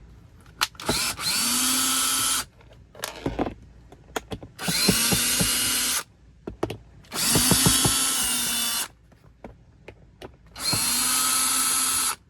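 Cordless drill backing out four screws from a car's plastic center console: four separate runs, each spinning up with a rising whine and then running steadily for about a second and a half, with short pauses and light clicks between them as the bit moves to the next screw.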